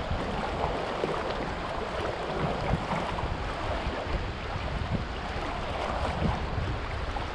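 River current running steadily over a shallow rocky bed, a constant rushing of water, with a low wind rumble on the microphone underneath.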